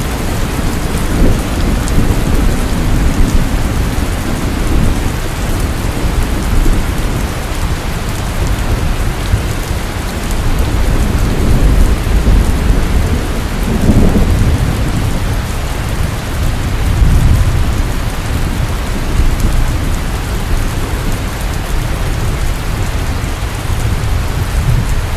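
Heavy rain pouring steadily, with low thunder rumbling underneath that swells and fades several times.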